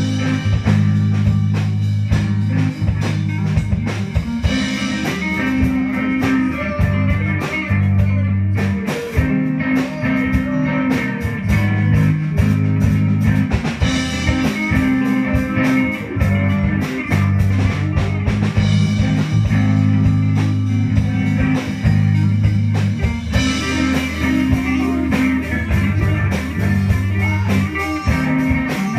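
Live band playing a song: electric guitars with a bass line over a drum kit.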